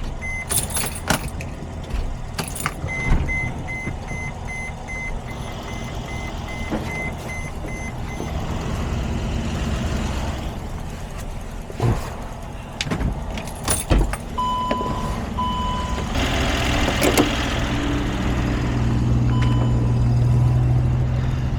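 Mercedes Sprinter 3.0L V6 OM642 diesel running roughly while being kept alive with starting spray. The spray hisses at times, and the engine gets louder and steadier in the last few seconds. Dashboard warning beeps repeat over it.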